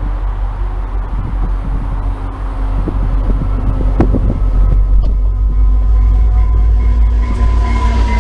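VIA Rail F40PH-2 diesel-electric locomotive hauling a passenger train as it approaches and passes close by. Its heavy low rumble grows louder over the first few seconds and stays loud as the locomotive goes past.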